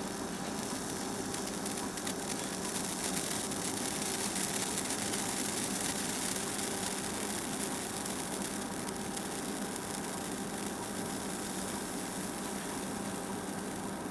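Senko hanabi (Japanese hand-held sparkler) sputtering with fine, rapid crackles, busiest and a little louder a few seconds in and then thinning out, over a steady background hum.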